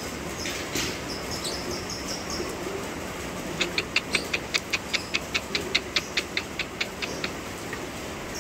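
Rain falling steadily on a flooded concrete yard. Over it, a lovebird in its cage gives a few high chirps, then a quick run of about twenty sharp chirps, roughly five a second, that fade toward the end.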